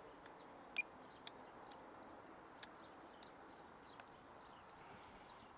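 Near silence outdoors with a few faint, brief bird chirps scattered through it.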